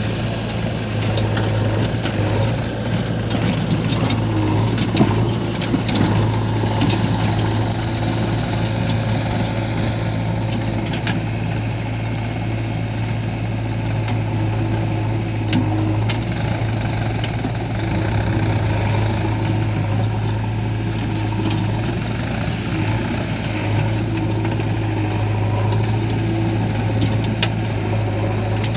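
Heavy diesel engine running steadily, with scattered short knocks and clatters over it.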